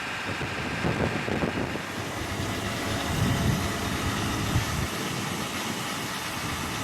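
Wind gusting against the microphone in irregular low rumbles, over a steady machine running underneath.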